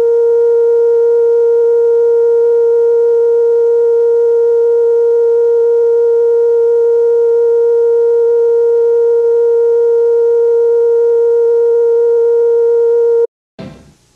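Broadcast test tone: one loud, steady electronic pitch held unchanged, cutting off suddenly about a second before the end.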